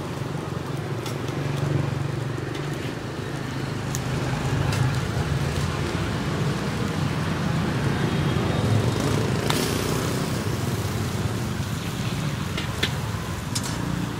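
Street-stall ambience: a steady rumble of passing traffic, with a few short clinks of metal utensils against the woks.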